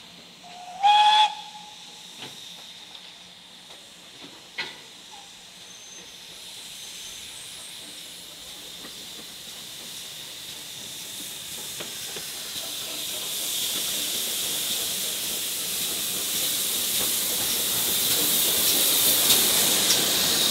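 GWR Castle class 4-6-0 No. 4079 Pendennis Castle gives one short whistle blast about a second in. A steady hiss of steam then grows louder as the engine draws near and passes close by.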